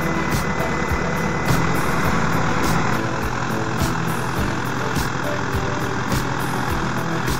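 Diesel engines of a Gregoire grape harvester and its tractor running steadily. A sharp tick repeats about once a second over the engine sound.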